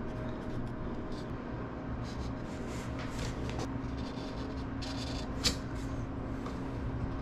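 Felt-tip marker scratching in short strokes on aluminum spar parts, with light rubbing and handling of the metal and one sharp click about five and a half seconds in, over a steady low hum.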